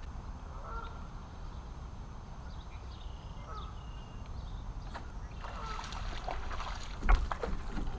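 Wind rumbling on the microphone. About five and a half seconds in, a hooked bass splashes at the surface, mixed with short high whines, and a sharp thump follows about seven seconds in.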